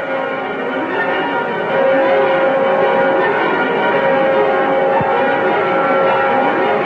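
Many bells pealing together in a dense, continuous ringing that rises out of the end of the dialogue and holds steady, serving as a bridge between scenes in an old radio drama.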